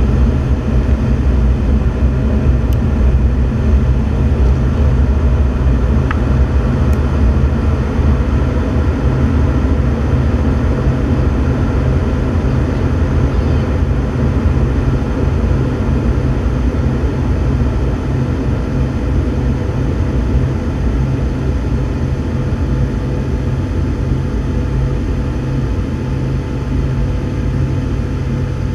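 Loud, steady low-pitched noise inside a jet aircraft's cabin in flight, from its engines and airflow.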